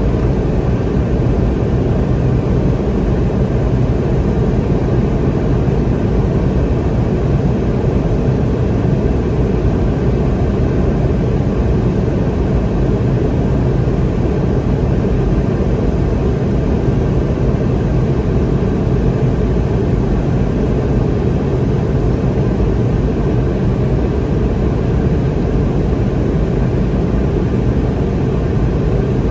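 Steady noise of a Boeing 717 jet airliner's Rolls-Royce BR715 engines and airflow, a constant low rumble that holds the same pitch and level throughout.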